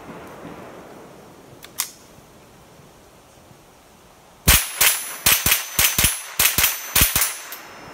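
A Ruger 10/22 semi-automatic .22 rimfire rifle fired rapidly: about ten sharp shots in under three seconds, one ten-round magazine emptied, starting about four and a half seconds in. A light click comes about two seconds in.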